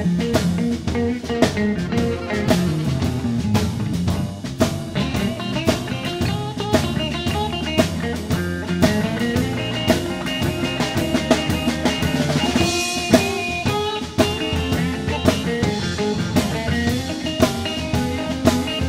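Live blues band playing: electric guitar over a drum kit keeping a steady beat.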